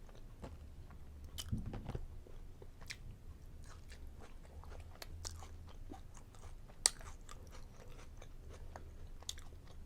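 A person chewing and biting food at close range, with small wet mouth clicks and crackles throughout. One sharper click comes about seven seconds in, over a steady low hum.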